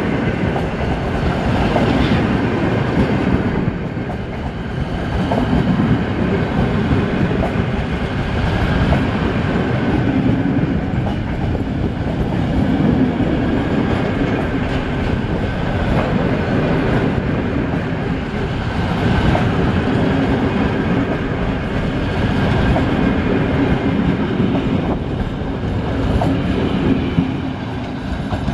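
Vintage passenger coaches of a historic train rolling past close by, a steady rumble with wheel clicks over the rail joints. The sound swells every three seconds or so as each coach's bogies go by.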